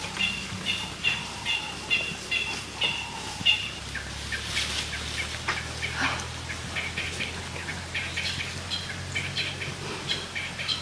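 A bird calling over and over in short chirps, evenly about twice a second for the first few seconds, then more scattered, over a faint low steady hum.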